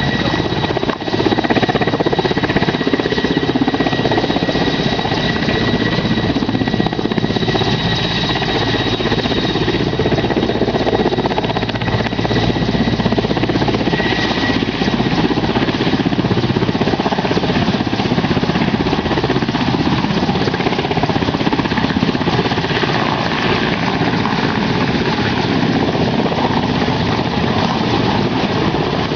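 Helicopter running close by: steady heavy rotor and engine noise with a high, steady whine that fades out about halfway through.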